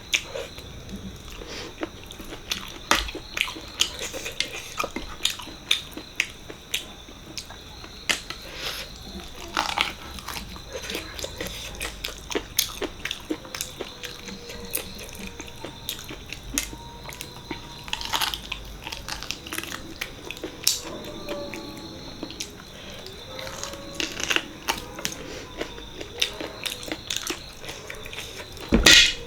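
Close-miked eating sounds: a person chewing and biting mutton leg curry with rice, with frequent sharp, wet mouth clicks and smacks at an irregular pace. A faint steady high whine runs underneath, and a louder cluster of clicks comes near the end.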